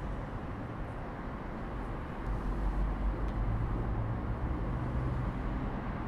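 Outdoor ambience: wind rumbling on the microphone over the low, steady hum of distant town traffic, a little louder from about two seconds in.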